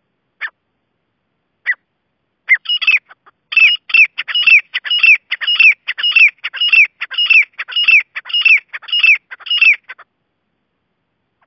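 Grey francolin calling loudly: two single sharp notes, then a fast, evenly repeated series of harsh calls at roughly two a second that runs for about seven seconds and stops near the end.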